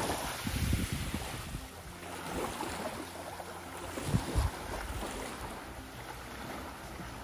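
Small waves lapping gently on a sandy shore, with wind buffeting the microphone in low rumbling gusts, about a second in and again around four seconds.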